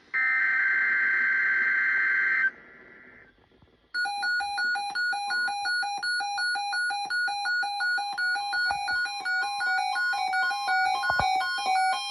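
Emergency Alert System digital header: a harsh, buzzing data burst about two and a half seconds long. After a short gap, a weather radio receiver's alarm sounds: fast repeating beeps stepping between pitches, about two a second.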